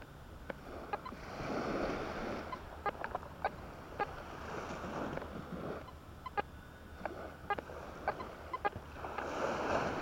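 Quest Q40 metal detector giving short, irregular chirps as its coil sweeps over beach sand. Three soft swells of waves wash on the shore, about a second, five seconds and nine seconds in.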